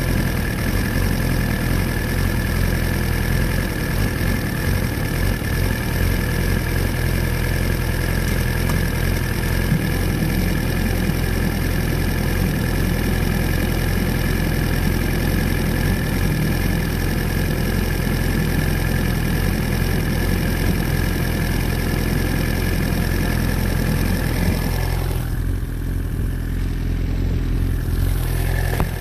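Motorcycle engine idling steadily, a low, even engine note. About four seconds before the end the higher hiss around it falls away, leaving the low idle.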